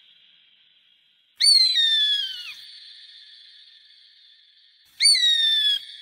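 Two loud, clear whistled calls of a hawk, each starting sharply and sliding down in pitch. The first comes about a second and a half in and lasts about a second; the second, slightly shorter, comes near the end. Each leaves a long echo-like tail.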